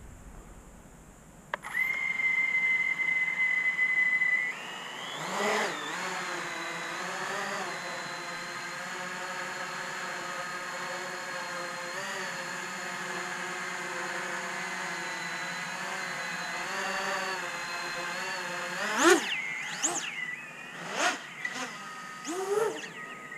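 Large 12S X-Class racing quadcopter (an 800 mm Patriot X): its motors and propellers run with a steady high whine, then spin up to a steady low-throttle hum while it sits on the ground. Near the end come several quick rising and falling whines as the throttle is punched and it lifts off.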